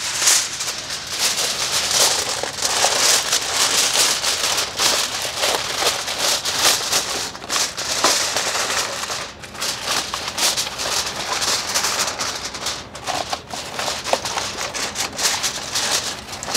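Aluminium foil crinkling and crackling without a break as a sheet is smoothed over a disposable foil pan and crimped down around its rim by hand.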